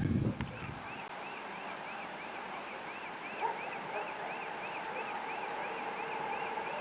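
Rapid, evenly repeated electronic chirps, about three or four a second, from a railway warning signal sounding for an approaching train. About halfway through, a faint steady hum from the approaching VL40u electric locomotive comes in underneath.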